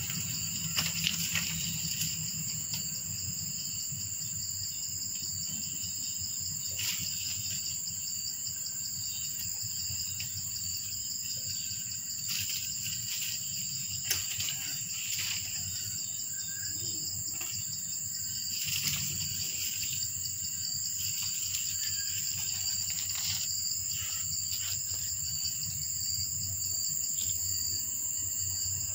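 Outdoor ambience of a steady, high-pitched insect chorus over a low background rumble, with a few faint clicks.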